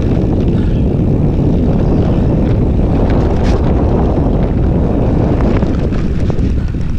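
Wind buffeting the microphone on a fast mountain-bike descent: a loud, steady low rumble, with scattered light clicks and rattles of the bike over the trail.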